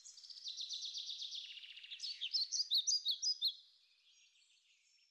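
Birdsong: a rapid high trill, then a run of quick down-slurred chirps, ending about three and a half seconds in.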